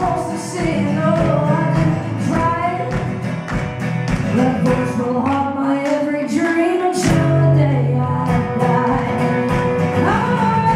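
Live country-rock song: a woman singing lead over strummed acoustic guitar, with a steady beat.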